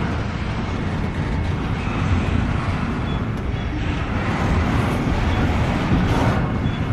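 Freight train cars rolling past at speed: a steady, loud rumble and clatter of wheels on the rails.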